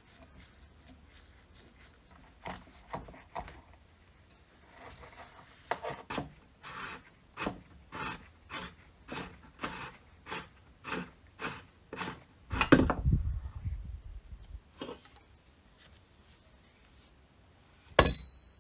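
Rhythmic rubbing or scraping strokes on the old rusty car air pump, about one and a half a second, then one longer, louder scrape. Near the end comes a single sharp metallic clink that rings briefly.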